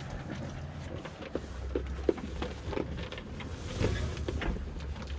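Goats eating and jostling in a wooden feeding stall: irregular small knocks and clicks over a low steady rumble.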